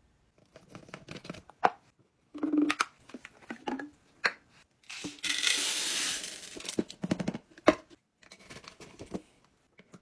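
Laundry scent booster beads poured from a plastic bottle into a plastic canister: a dense rush of pellets lasting under two seconds, about halfway through. Around it are clicks and knocks of the bottle and canister being handled, with a sharp knock shortly after the pour.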